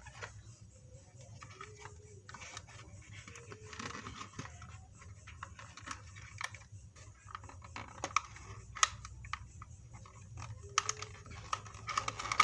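Light plastic clicks, taps and brief rustles from a mini RC helicopter and its packaging being handled, coming in irregular bursts and thickening near the end.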